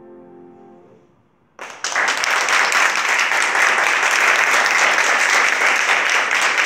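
The last chord of the piece fades out, then after a brief hush, audience applause breaks out suddenly about a second and a half in and continues steadily.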